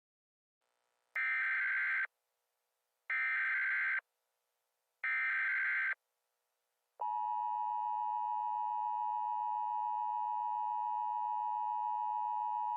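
Emergency Alert System tones that open an alert: three roughly one-second bursts of the digital SAME header tones, about a second apart. About seven seconds in, the steady two-tone EAS attention signal begins and holds.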